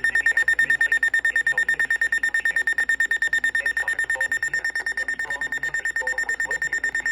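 Electronic emergency alert tone sounding for a Special Marine Warning: a high, steady-pitched beep pulsing rapidly, about eight times a second.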